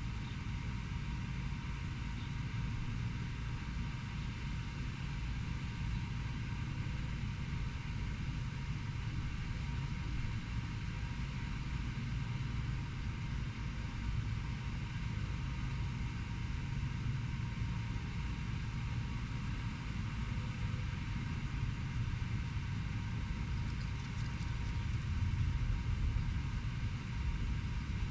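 Steady low rumble of distant city traffic, swelling slightly a few seconds before the end.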